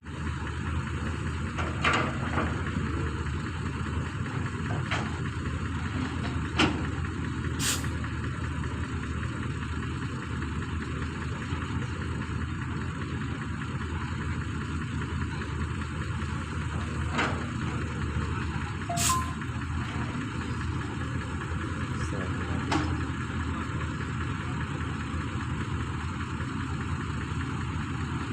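Heavy engine running steadily, with a few sharp knocks and two short high hisses.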